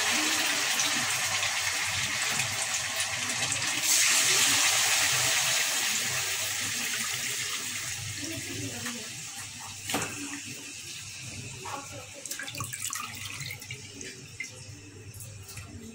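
Raw beef tripe sizzling as it is dropped into hot oil in a metal karai, with a fresh surge of sizzle about four seconds in as more pieces go in, then slowly fading. One sharp knock about ten seconds in.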